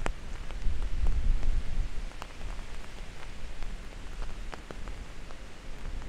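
Steady rain falling, with scattered sharp taps of single drops landing close by. A low rumble during the first couple of seconds fades out.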